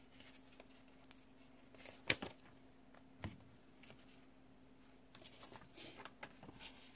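Faint paper rustling and a few sharp ticks as small seashell stickers are peeled off a sheet and pressed onto planner pages, the loudest tick about two seconds in and another about a second later.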